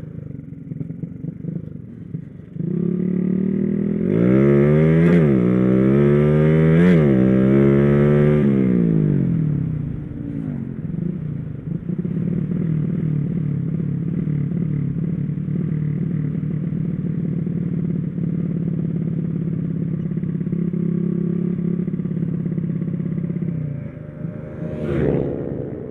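Small motorcycle engine revving hard from about three seconds in, its pitch climbing and dropping twice. It then settles into steadier, quieter running, with one more short rev near the end.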